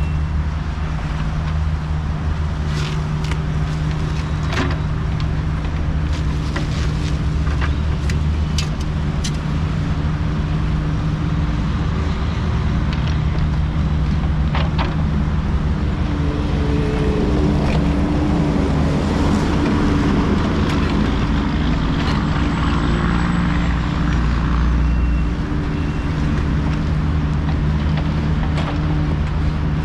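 Kubota U55 mini excavator's diesel engine running steadily under working load, with sharp knocks and clanks from the digging, mostly in the first third. In the middle the engine note wavers and a rising hydraulic whine comes in, then it settles back to a steady run.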